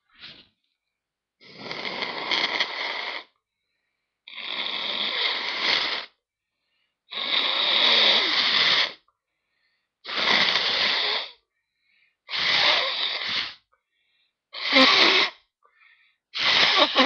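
A person blowing their nose hard, seven long blows of one to two seconds each with short pauses between, the last two shorter.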